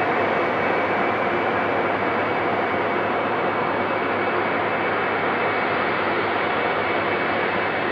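Turbofan engines of a Boeing widebody twinjet airliner at takeoff power on departure, a loud, steady roar. Its highest hiss slowly thins over the few seconds.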